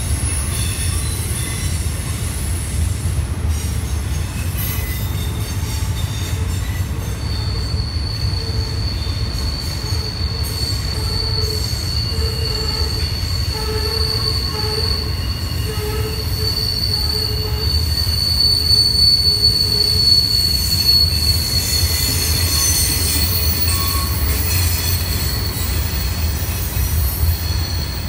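Train rounding the sharp Horseshoe Curve, its steel wheels squealing on the rails in a steady high whine that sets in several seconds in, over the low rumble of the passing train.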